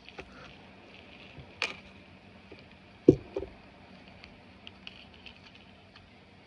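Handling a small jewelry box: a sharp click about a second and a half in, a thump about three seconds in followed at once by a lighter knock, then a few faint ticks.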